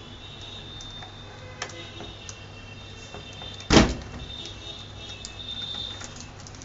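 Handling of a plastic laptop on a desk: a small click about one and a half seconds in, then a single loud knock near the middle as the laptop is set down upright. A faint high-pitched whine runs underneath.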